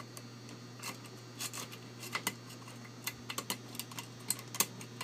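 Irregular small metallic clicks of a half-diamond pick working the pins of a Basi euro cylinder lock under light tension, over a steady low electrical hum.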